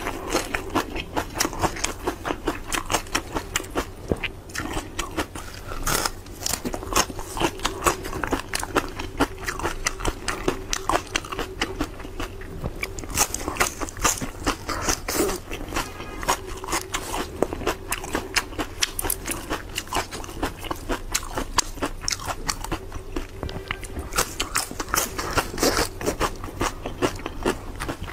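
Crisp crunching and chewing of raw coriander and other fresh greens, a fast, uneven stream of crackling bites picked up close by a lapel microphone.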